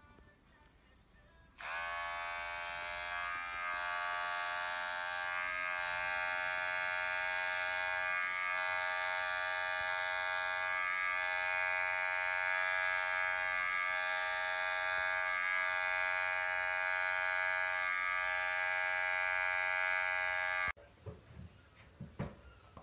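Electric pet hair clipper switching on about two seconds in and running with a steady buzz as it trims the fur on a cat's paw, then cutting off suddenly near the end.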